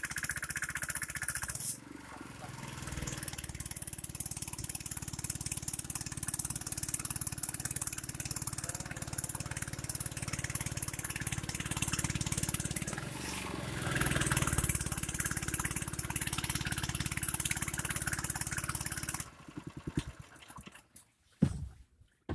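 Small boat's engine running with a fast, even chug. It dips briefly about two seconds in, swells again later, and is switched off about nineteen seconds in, leaving only a few faint knocks.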